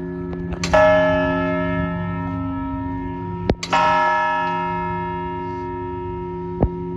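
Tower clock bell striking the hour twice, about three seconds apart, each strike ringing on and slowly fading over the hum of the one before. A couple of sharp clicks are heard between and after the strikes.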